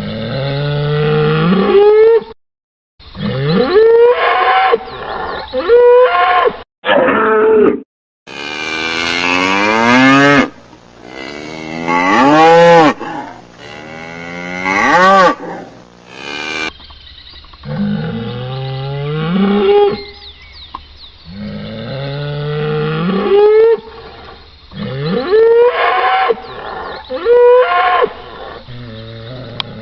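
Cattle mooing and bellowing, one loud drawn-out call after another, about a dozen in all, some sliding up or down in pitch. The calls come from separate recordings spliced together, with abrupt cuts between them.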